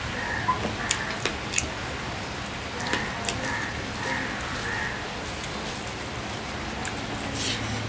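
Steady rain falling, with scattered sharp chewing and lip-smacking clicks as rice is eaten by hand.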